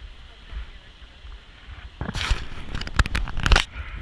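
Low, steady outdoor rumble broken by loud rustling bursts on the microphone, one about two seconds in and a cluster around three seconds in, typical of wind gusts buffeting the mic.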